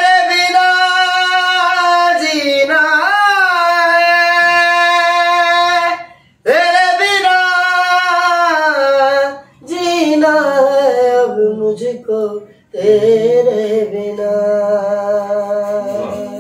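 A man singing a slow song in a high voice, drawing out long wavering notes in four phrases with short breaths between them.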